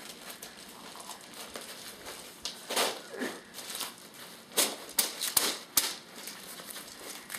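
Full metal airsoft rifle magazines being handled, with irregular light clicks and knocks over rustling of gear, the clicks coming mostly in the second half.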